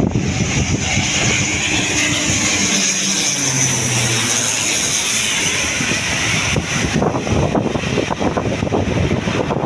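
Twin-engine turboprop airliner passing low overhead on landing approach, gear down: loud propeller drone and turbine whine that swell as it comes over, with the pitch dropping as it passes. A rougher, crackling rumble follows as it moves away.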